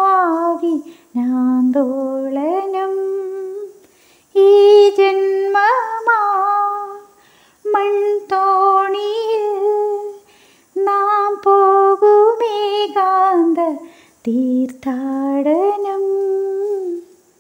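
A woman singing a melody without accompaniment, phrase by phrase with short breaks between, her held notes wavering.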